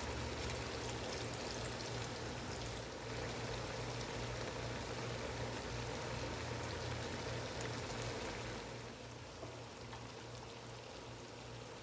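Chicken, liver and gizzard simmering in a pot of liquid: a steady bubbling hiss with a low hum underneath, growing a little quieter about nine seconds in.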